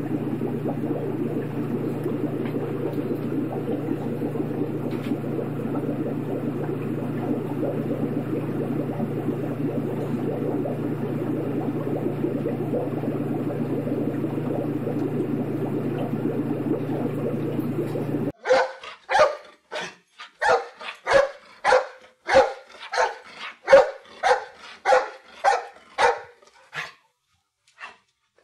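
A steady low rumbling noise with no distinct events; about two-thirds of the way in it cuts off suddenly and a small dog starts barking repeatedly, about one and a half barks a second, with a short pause near the end.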